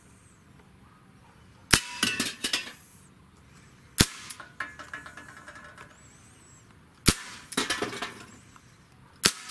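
Revolver-style airgun fired four times, about two to three seconds apart, each sharp shot followed by a short metallic clatter as a can is hit and knocked off its ledge.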